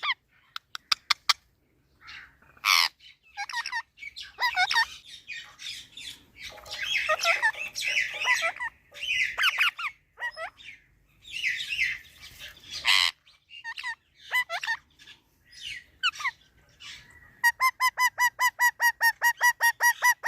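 Pet parrot squawking and chattering in varied calls, with a few sharp clicks early on. Near the end it gives a rapid, even string of repeated calls, about five a second.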